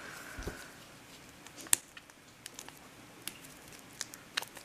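Faint handling of coins and a clear plastic coin flip: a few short, sharp clicks and light rustling, the loudest click a little under two seconds in.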